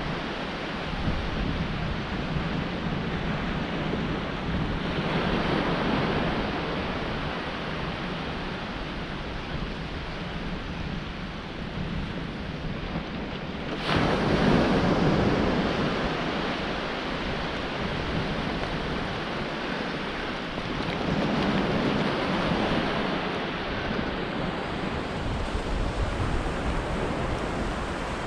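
Sea waves surging and breaking on the shore in slow swells about every seven or eight seconds, the loudest one starting suddenly about halfway through, with wind rumbling on the microphone.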